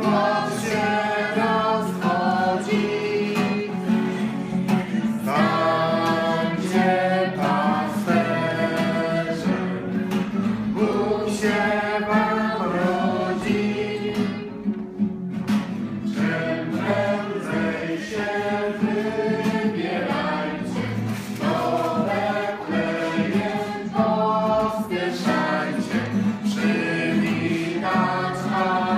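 Several voices singing a Christmas carol together to acoustic guitar accompaniment, with a brief break between phrases about halfway through.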